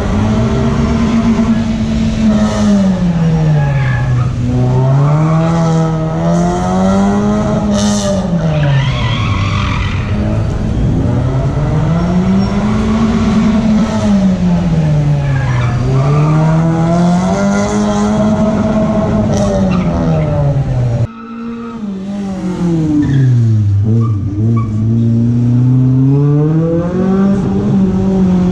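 A car's engine being driven hard through a cone slalom course, revving up and dropping back over and over, its pitch rising and falling every two to three seconds, with tyres squealing at times. The sound breaks off briefly about three-quarters of the way in, then the same rising and falling picks up again.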